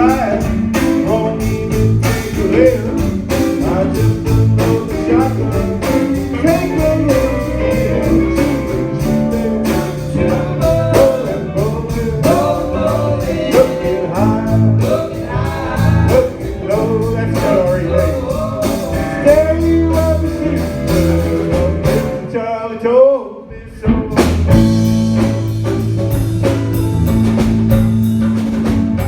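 Live band playing blues-rock with electric guitar, bass, drums and singing. About two-thirds through, the band drops out for a moment to a lone sliding note, then comes back in full.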